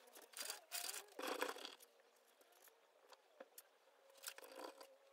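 Fingers rubbing and smoothing soft clay on a hand-built vase: soft scraping strokes, a spell of about a second and a half just after the start and a shorter one near the end.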